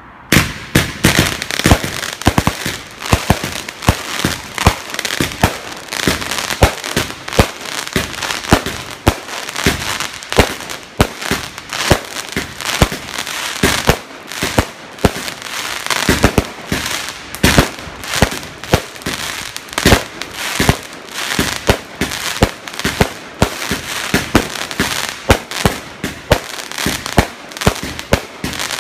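A 112-shot firework cake firing in rapid succession: sharp launch thumps and aerial bursts about two a second, over a steady hiss of burning stars between them. The barrage starts suddenly and keeps going without a break.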